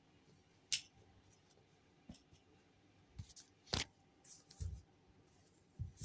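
Handling noise from plush toys being picked up and set down: scattered brief clicks and rustles with a few soft thumps, the sharpest click a little under four seconds in.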